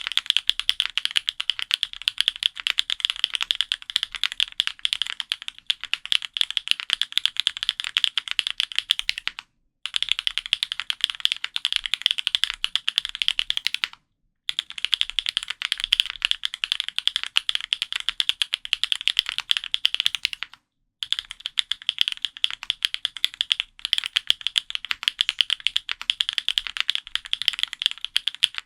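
Fast typing on an F1-8X mechanical keyboard fitted with Gateron Raw switches: a dense, continuous stream of crisp keystrokes. It breaks off briefly three times, about a third, a half and three quarters of the way through.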